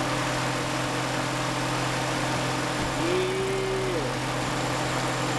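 Infiniti G35 Coupe's VQ35DE V6 idling with the replacement electric radiator fan running, a steady rushing of air over the engine hum. The fan switching on with the engine warmed up is the sign that it works.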